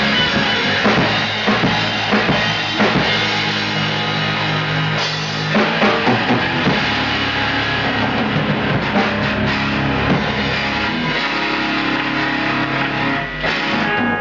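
Rock band playing: drum kit with bass drum, bass and electric guitar.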